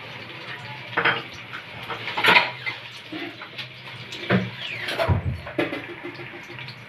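About five irregular clinks and knocks against a large aluminium cooking pot as sliced onions are added to the oil in it.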